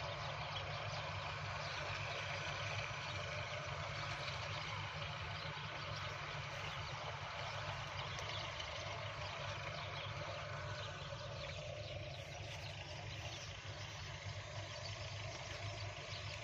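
Steady low hum of a running engine under an even outdoor hiss, with no change in pace.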